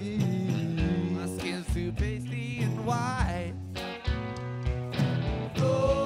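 Alternative rock band playing live: electric guitars, bass and drums, with a sung vocal line in the middle.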